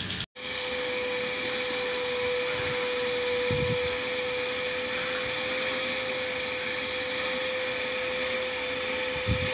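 Stainless-steel drum wet-and-dry vacuum cleaner running steadily with a constant whine over its rushing hiss, its hose vacuuming a car's interior. A couple of faint knocks sound midway and near the end.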